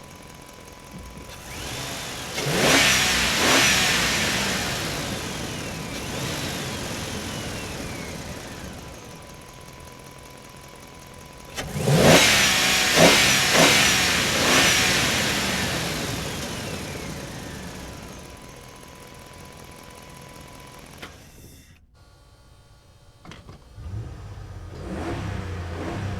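Motorcycle engine revved in place: it idles, then throttle blips make the engine note shoot up and die away slowly over several seconds, once about two seconds in and again with several quick blips about twelve seconds in. Near the end the sound cuts to a quieter idle with lighter revs.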